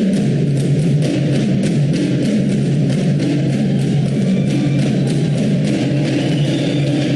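Band music from a wind band: held low notes over quick, regular drum strokes, with the bass note dropping to a new pitch right at the start.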